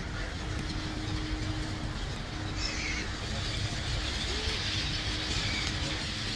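Steady road-traffic rumble with a large flock of gulls calling overhead; their high chatter thickens and grows louder about two and a half seconds in.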